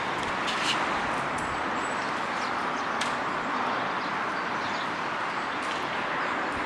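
Steady rushing background noise, with a few sharp light clicks: about a second in, around three seconds and near the end.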